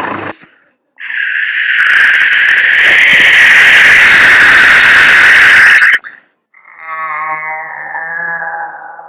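Mouth-made war sound effects: a loud hissing rush for about five seconds that cuts off suddenly, then a pitched whistle that slowly falls in pitch, like an incoming shell.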